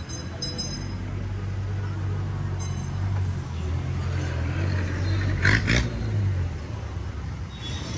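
Urban street traffic: a steady low rumble of vehicle engines, with a brief loud hiss about five and a half seconds in.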